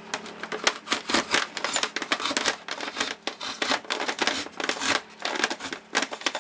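Styrofoam squeaking and crunching in quick, irregular scrapes as a plastic STC-1000 thermostat housing is pushed and worked into a tight hole cut in an incubator's foam lid.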